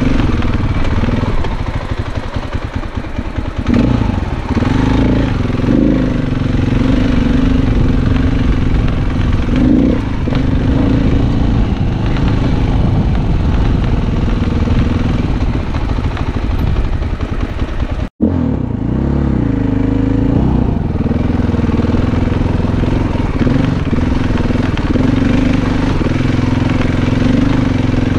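Dirt bike engine running under way on a rocky trail, its revs rising and falling continuously as the rider works the throttle. The sound cuts out for an instant about eighteen seconds in.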